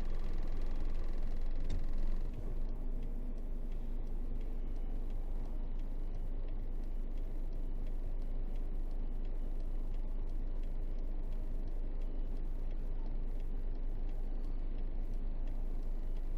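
Isuzu 8x4 truck's diesel engine running as a steady low drone while driving. A higher whine fades out and the level dips slightly about two seconds in.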